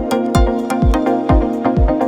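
Electronic dance music: a steady kick drum about twice a second under held synth chords.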